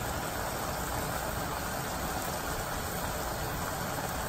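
Chicken pieces simmering in their own juices in a stainless steel sauté pan, a steady bubbling sizzle as the liquid cooks down.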